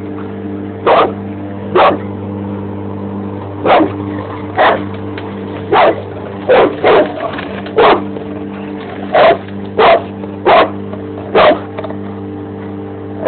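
Bandogge mastiff barking about a dozen times in short single barks and quick pairs at uneven intervals, over the steady hum of a running lawn mower engine.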